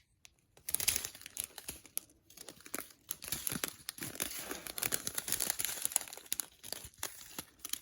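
Plastic packets of diamond-painting gems crinkling as they are handled, starting about a second in.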